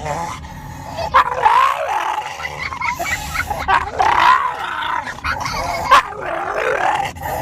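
A dog making a run of wavering vocal sounds that rise and fall in pitch, one after another.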